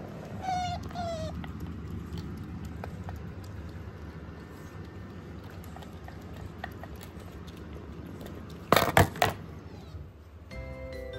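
Asian small-clawed otter giving two short, high squeaks with slightly falling pitch, half a second apart. Near the end come three loud, sharp bursts of noise close together.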